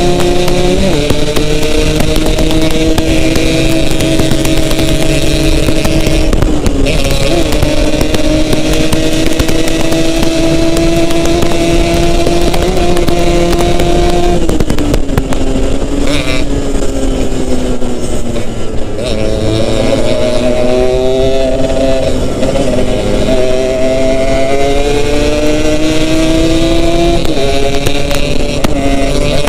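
Yamaha RX-King's two-stroke single-cylinder engine running under way, its pitch climbing slowly and dropping back several times as gears change, with a longer fall-off about halfway through before it pulls up again. Steady wind and road rush lies underneath.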